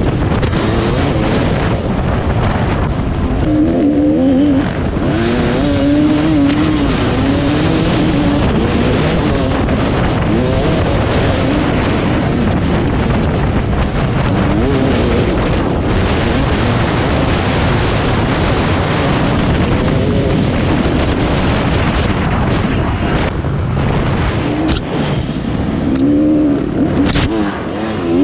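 Yamaha YZ250 two-stroke dirt bike engine under way on a trail, its revs rising and falling over and over as the throttle is worked through the ride, with a sharp rise near the end.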